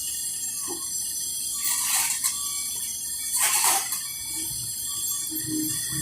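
Excavator working a load of soil and sand into a dump truck: two short bursts of rushing noise, about two and three and a half seconds in, over a steady high hiss.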